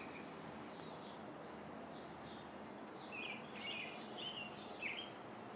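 Small songbirds chirping: many short, quick high calls, some overlapping, over a steady background hiss.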